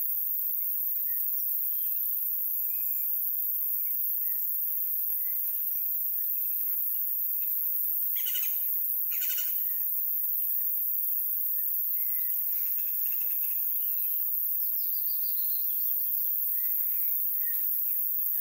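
Several birds calling and chirping over a steady high hiss, with two louder calls about eight and nine seconds in and a quick run of notes a little before the end.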